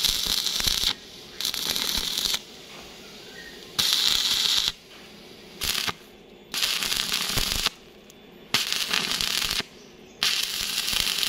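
Arc-welding crackle from a stick (electrode) welder, in seven short runs of about a second each with brief pauses between. Each run is a bead laid on a steel bracket to strengthen its earlier tack welds.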